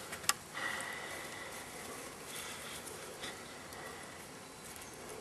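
Faint outdoor background noise, with one short sharp click just after the start and a faint steady high tone lasting a couple of seconds.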